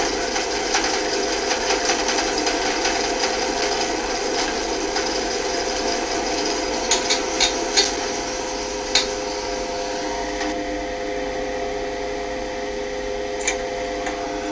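Passenger lift car running: a steady mechanical hum and rattle with a few sharp clicks about seven to nine seconds in and again near the end. The sound eases slightly about two-thirds of the way through.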